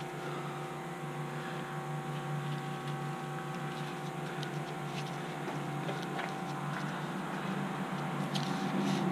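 A steady machine hum holding several fixed pitches, with faint scratching and ticking that picks up near the end from a razor blade cutting canvas.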